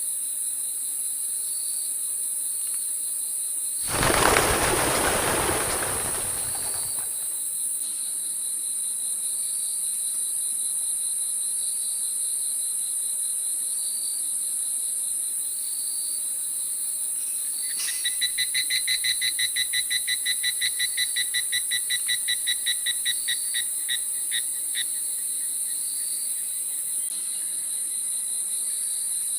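Steady high-pitched chorus of crickets, with short repeated chirps. About four seconds in, a loud rushing noise lasts about three seconds, and later a rapid pulsed chirping call runs for several seconds.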